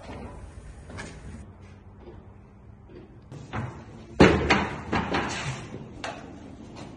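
A sharp bang about four seconds in, followed by a run of smaller knocks and clatter over the next two seconds, like a door or cupboard being banged.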